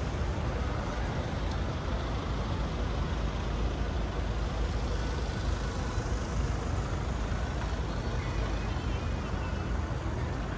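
Steady city street ambience: a constant low rumble of road traffic, with no single vehicle standing out.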